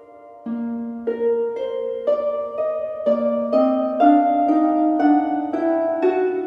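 Background music: gentle harp-like plucked notes playing a slow melody, a new note about every half second, climbing in pitch.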